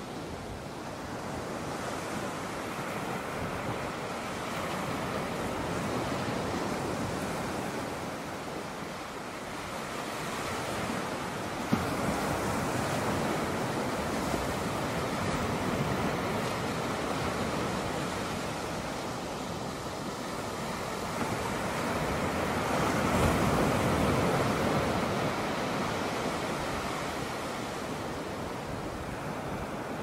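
Ocean surf breaking and washing up the sand: a steady rush that swells and eases, loudest about two-thirds of the way through, with wind buffeting the microphone. A single sharp click about twelve seconds in.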